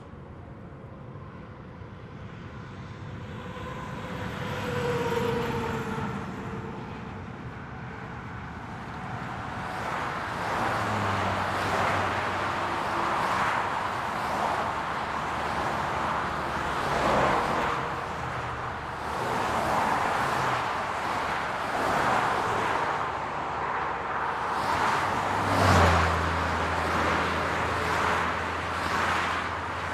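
Highway traffic: a steady rush of tyres and engines. It builds over the first few seconds, then many vehicles pass one after another, each swelling and fading. Near the end a heavier vehicle's low engine hum joins in.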